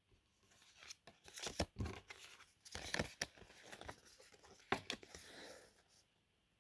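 Faint rustling and soft clicks of trading cards being handled, slid and flipped by hand, in several short bursts.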